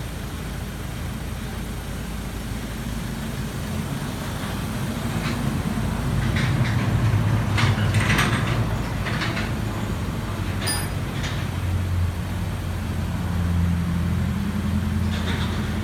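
A vehicle engine running steadily, with a scatter of short clicks and knocks in the middle and again near the end.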